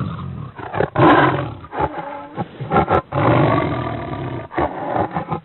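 Tiger roaring and growling in about six drawn-out bursts one after another, a recorded sound effect.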